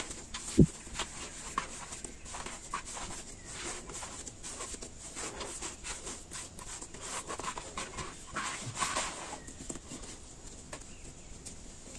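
Hands kneading and folding a soft yeast dough in a bowl: squishing and pressing of the dough with small slaps and rustles. There is one loud thump about half a second in, and it gets quieter near the end as the dough ball is lifted.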